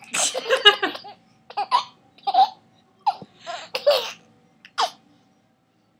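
Laughter in short bursts, a baby's laughing among it, about half a dozen bursts that stop about five seconds in.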